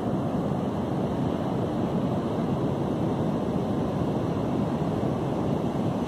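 Steady noise of ocean surf breaking and washing up a sandy beach, mixed with wind on the microphone.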